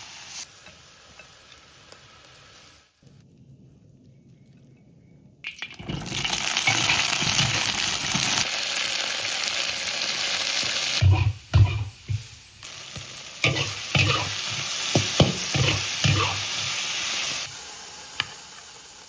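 Pig's trotters and quail eggs sizzling in a wok in their sauce while a spatula stirs them, with several knocks of the spatula against the pan. The sizzle comes in loud about six seconds in, after a quiet spell, and drops away near the end.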